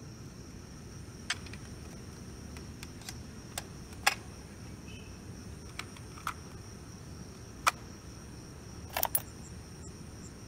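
Sharp plastic clicks from a portable cassette player being handled: its door and buttons are worked as a tape is loaded and play is pressed. There are about eight scattered clicks, with a quick double click near the end. Crickets trill steadily in the background.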